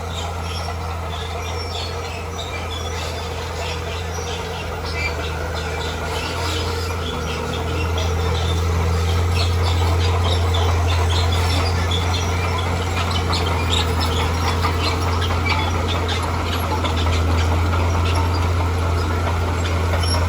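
Heavy earthmoving machine's engine running steadily with a deep hum, growing louder about a third of the way in, with scattered short high squeaks and clinks over it.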